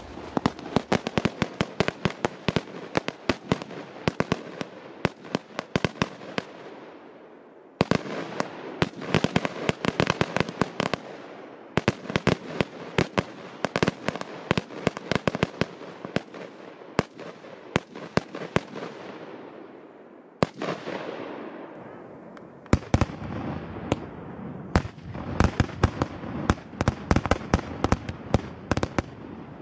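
A long string of handmade firecrackers on a fast fuse going off: rapid, irregular bangs that come in several bursts with brief lulls between them.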